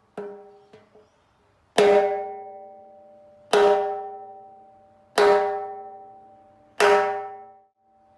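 Timbales struck with a stick: a light stroke and two soft taps, then four loud, evenly spaced strokes, each ringing out with a metallic, pitched tone and fading slowly. The last stroke is cut short, as if damped.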